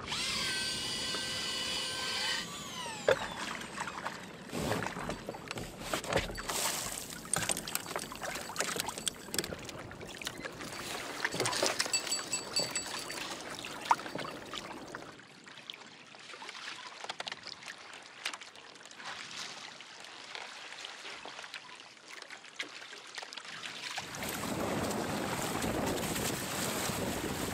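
Fishing reel drag buzzing as a fish takes line, slowing and falling in pitch after about two seconds. Then scattered clicks and knocks of rod and reel handling. Near the end, water rushing and splashing along the sailing kayak's hull, with wind noise.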